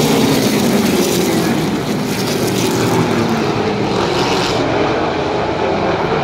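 A field of V8 late model stock cars running together around a short oval track, making a steady, dense engine drone.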